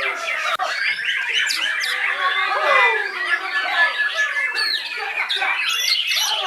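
Several caged white-rumped shamas (murai batu) singing at once, a dense tangle of overlapping whistles, rising and falling phrases and harsh calls.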